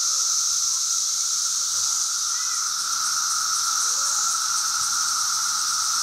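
Chorus of Brood X periodical cicadas: a steady, unbroken drone in two pitches, a lower buzz and a higher hiss.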